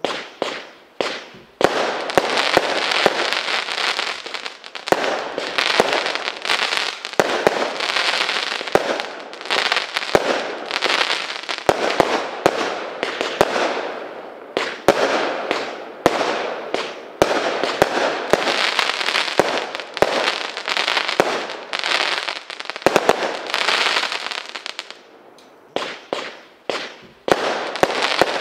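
Benwell 'Fire in the Hold' 26-shot firework cake firing: a rapid run of sharp reports over a near-continuous noisy rush, with a brief lull a few seconds before the end.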